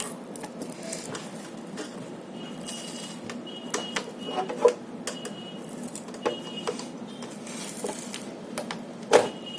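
Scattered light clicks and taps of hands working a platform scale's keypad panel as its front sticker is peeled back, with sharper knocks about four and a half and nine seconds in, over a low steady hum.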